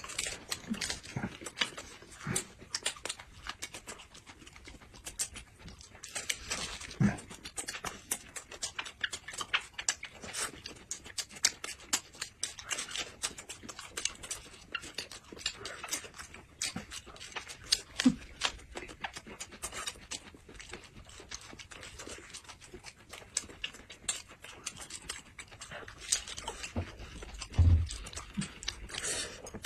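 Close-miked chewing and biting of rolled coarse-grain pancakes (jianbing) filled with scallions and meat: many irregular sharp clicks and wet mouth sounds, with a few louder bites.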